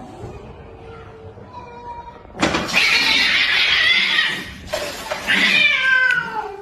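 Cat caterwauling: a loud, harsh screech about halfway in that lasts about two seconds, then a shorter yowl that falls in pitch near the end.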